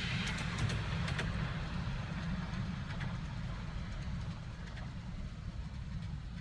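Steady low rumble of a miniature railway train running along the track, with a few faint clicks about a second and three seconds in.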